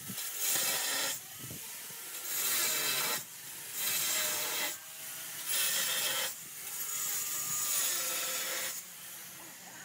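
Hand rubbing in strokes across the wet, soapy face of a granite slab: about five scraping strokes of roughly a second each, with short pauses between.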